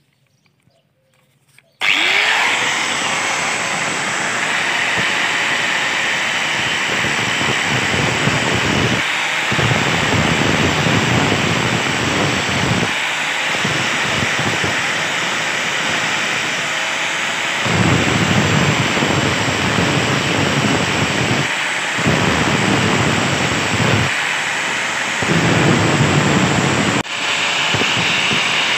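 Angle grinder starting suddenly about two seconds in, then grinding through the steel pipe and weld at an old axe head's eye, easing off the metal briefly several times.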